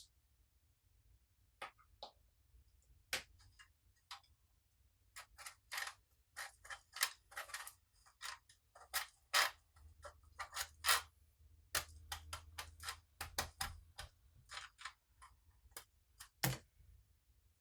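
Slime being worked and squished, making irregular sticky clicks and pops. The clicks are sparse at first and come thick and fast from about five seconds in.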